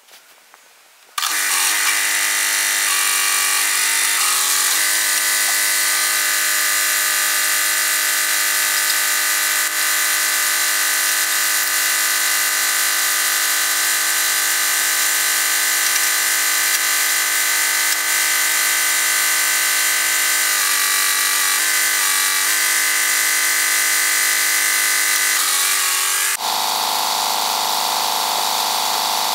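Loader tractor's engine running, pitched up into a loud, steady high buzz. It starts abruptly about a second in and shifts in pitch near the end.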